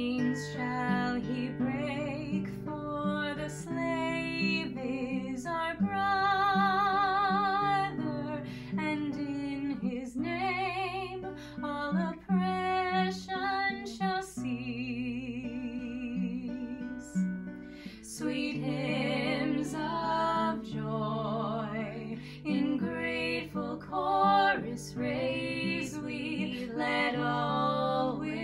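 Two women singing together, accompanied by an acoustic guitar.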